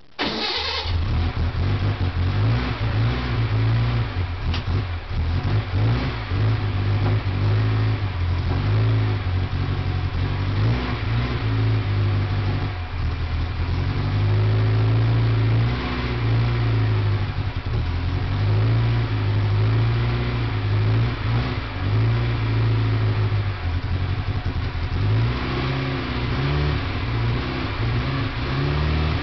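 1926 Bugatti Type 37's 1.5-litre in-line four-cylinder engine firing right at the start and running for the first time after a major rebuild. Its speed rises and falls over and over as the throttle is opened and closed.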